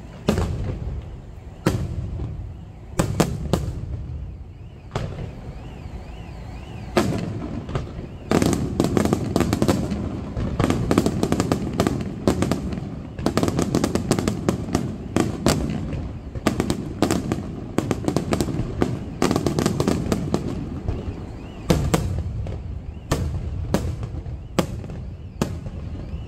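Aerial fireworks going off: shell bursts as sharp bangs, a few seconds apart at first, then packed into rapid, near-continuous reports for much of the middle before thinning out again.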